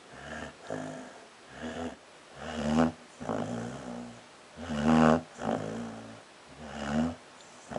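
Sleeping dog snoring, one snore on each breath about every two seconds, the loudest a little under three seconds in and again about five seconds in.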